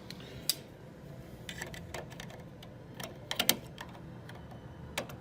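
Irregular light plastic clicks and taps from handling a Leviton smart wall switch and its snap-off front cover, with the loudest cluster about three and a half seconds in.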